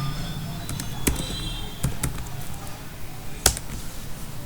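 A few sharp, isolated clicks and taps at a computer, the loudest about three and a half seconds in, over a low steady hum.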